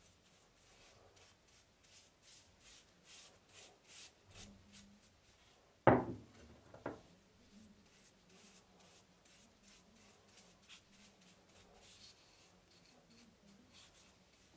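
Bristle brush stroking a liquid coating onto a knife handle: faint, rhythmic swishing brush strokes. Two sharp knocks about six seconds in, a second apart, the first one louder.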